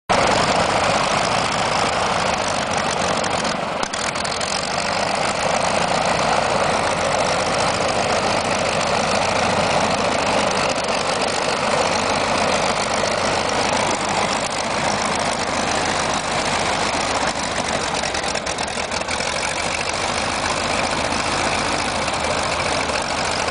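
Waco QCF biplane's radial engine and propeller running steadily during a ground run-up.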